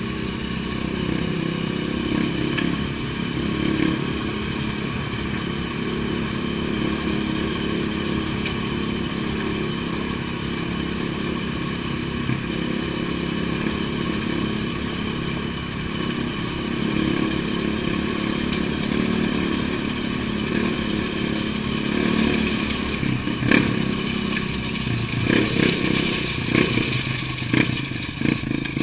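Dirt bike engine running steadily while being ridden through a tunnel. Several sharp knocks and clatters come near the end as the bike rides over rough ground.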